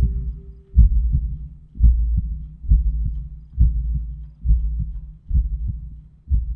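Heartbeat sound effect in a film soundtrack: slow, deep thuds about one every 0.9 seconds over a low drone, building suspense.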